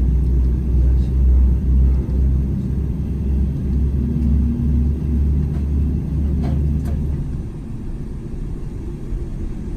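Steady low rumble inside the cabin of a Boeing 747-8 airliner taxiing on the ground. The deepest part of the rumble eases off about seven and a half seconds in.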